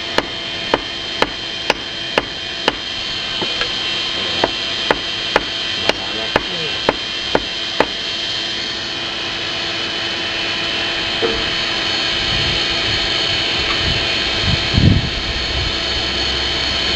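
Hammer striking hot steel on an anvil, about two ringing blows a second, stopping about eight seconds in. Under it, the forge's air blower drones steadily.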